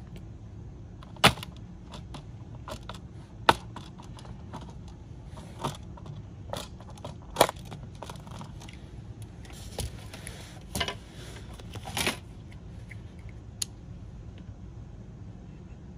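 Bottom cover of a Lenovo ThinkPad X1 Carbon Gen 9 laptop being pried off with a suction cup: sharp snaps as the cover's clips release, the three loudest about a second, three and a half and seven seconds in. Lighter clicks and a scraping follow as the panel is lifted away.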